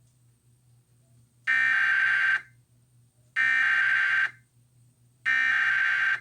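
Emergency Alert System SAME header: three harsh, buzzy digital data bursts of about a second each, roughly two seconds apart. It is the coded header that opens an emergency alert broadcast.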